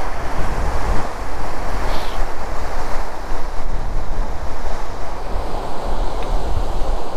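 Wind buffeting the microphone in uneven gusts, over a steady rushing noise.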